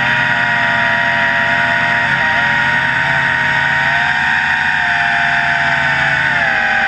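WLtoys V262 quadcopter's four motors and propellers whining steadily in flight, heard close up from the camera mounted on it. The pitch dips briefly about two seconds in and again near the end as the throttle changes.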